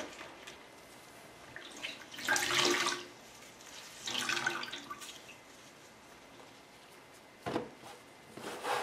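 Water splashing and dripping in two short bursts, a cloth being wetted in diluted bleach. A short knock comes near the end, and then the cloth starts rubbing over the fabric chair seat.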